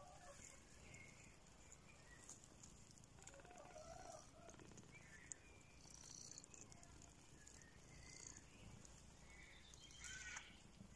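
Near silence, with faint, short, scattered animal chirps or calls here and there and a slightly louder one near the end.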